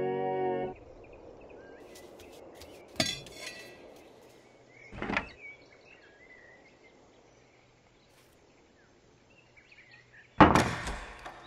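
Cartoon sound effects: a held organ chord cuts off under a second in, leaving faint chirping ambience with a few small clicks and a soft thud. Near the end comes a loud thud with a short rattle.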